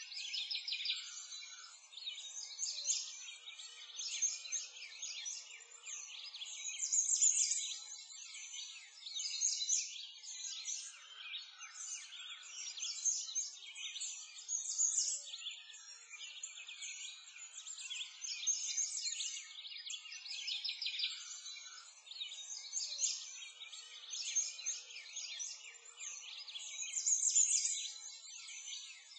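Many songbirds chirping and singing at once, a dense, continuous chorus of short high calls that swells and eases every couple of seconds.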